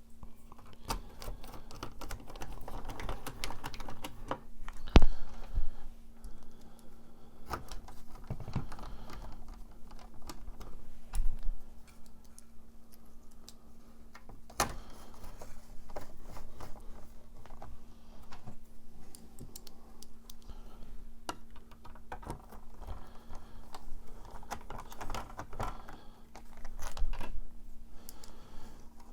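Irregular small clicks and taps of plastic and screws as the bottom circuit board of a digital instrument cluster is fitted to its housing and the screws are started loosely with a screwdriver, with a few louder knocks. A steady low hum runs behind.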